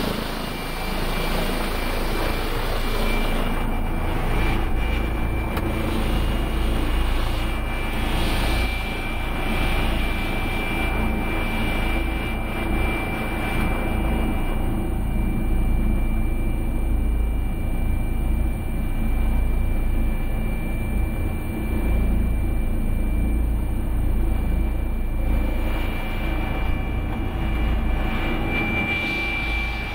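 Helicopter turbine engine and rotor running steadily while hovering low, heard from inside the cabin with the door open: a constant high whine over a dense rush, with heavy wind rumble on the microphone.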